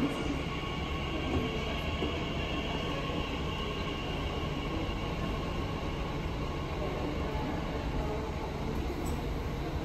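Electric regional multiple-unit train pulling out of the platform and moving away: a steady rolling rumble with a thin, even electric whine from its traction motors.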